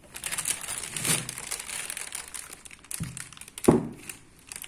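Anti-static plastic bag crinkling and crackling as a motherboard is lifted and pulled out of it, with a sharp louder crackle and a low knock near the end.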